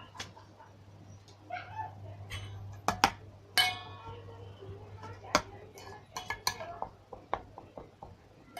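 Utensil clicking and knocking against a bowl while slime is mixed, in scattered sharp taps. A short, high-pitched cry cuts in about three and a half seconds in.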